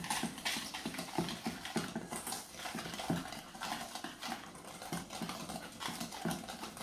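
A fork beating eggs and sugar in a stainless steel bowl: quick, regular strokes, each one a tap and scrape of metal on metal.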